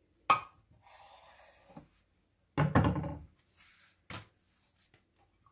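Chef's knife cutting through a stack of flour tortillas on a bamboo cutting board: a sharp tap of the blade on the board, then a short scraping slice. About two and a half seconds in comes a louder thump on the board as the cut wraps are handled, and a lighter tap a little later.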